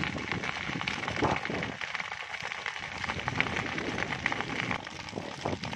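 A field of tall crop stalks burning: a steady rush of flames with many sharp crackles and pops.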